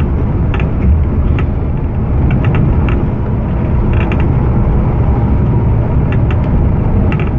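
Cabin sound of a moving coach bus: a steady low engine and road drone, with frequent short rattles and creaks from the interior fittings.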